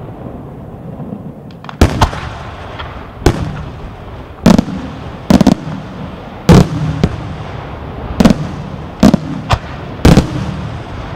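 Aerial firework shells bursting: about a dozen loud bangs at irregular intervals, some in quick pairs, each followed by a low rumbling echo. The first comes about two seconds in, after a low rumble.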